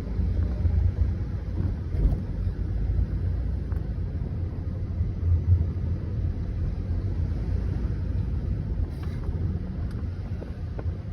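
Vehicle engine rumbling steadily, with the sound sitting low and wavering slightly in level.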